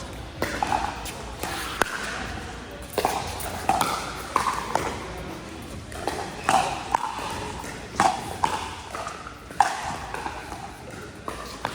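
Pickleball paddles striking a plastic pickleball in a rally: about ten sharp pops, roughly one a second, each with a short ring.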